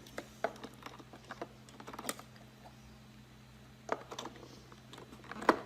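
Scattered light plastic clicks and taps of a carpet cleaner's hose fitting being handled and pushed onto its solution port.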